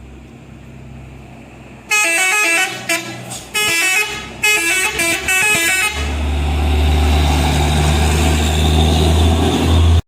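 Truck's telolet horn playing a quick tune of stepped notes for about four seconds, in three short phrases, then the truck's engine running loud and steady as it pulls up the climb.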